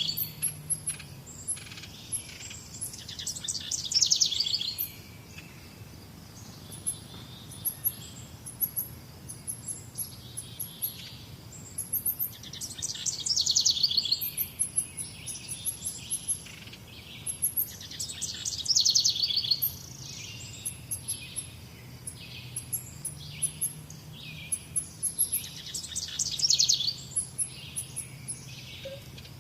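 Wild birds singing: one bird repeats a loud, fast trilled phrase every few seconds, with shorter chirps from other birds in between.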